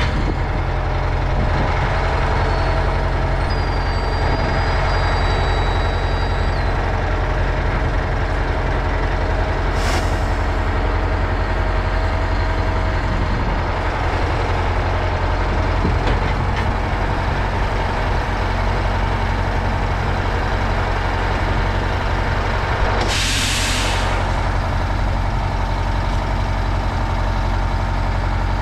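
Oshkosh MK48 heavy military truck's diesel engine running steadily while a pickup is pulled up onto its tilted deck. A short burst of air hiss comes about three-quarters of the way through, with a fainter hiss earlier.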